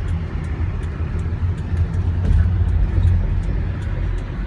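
Low, steady rumble of road traffic.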